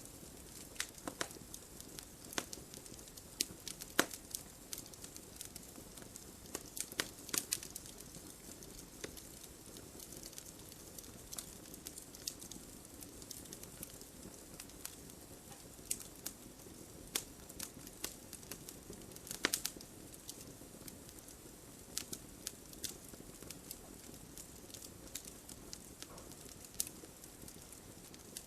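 Campfire crackling: a low, steady hiss of burning with frequent sharp pops and snaps at irregular intervals, a few much louder than the rest.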